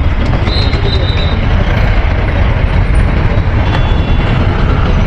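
Steady wind rush on the microphone mixed with motorcycle and road traffic noise while riding.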